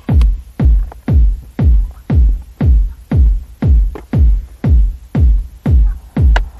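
Background music with a steady kick-drum beat, about two beats a second.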